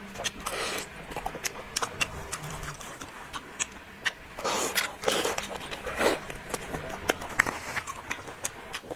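Close-miked eating: chewing with many crisp crackles and wet mouth smacks, loudest about half a second in and again around four to five seconds in.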